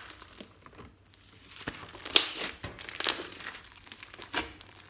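Hands squeezing and pressing glossy slime filled with small beads, giving irregular crackles, pops and sticky tearing sounds; the loudest burst of crackling comes a little past two seconds in.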